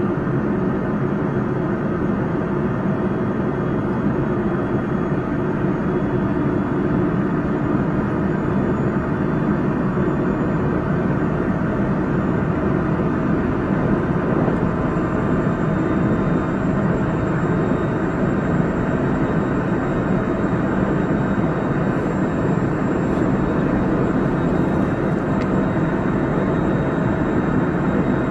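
JR Central 373 series electric multiple unit running at a steady speed, heard from inside the car: a continuous rumble of wheels on rail with faint, steady high whines from the Toshiba VVVF inverter drive. This is set F2, a set noted for an unusual running noise.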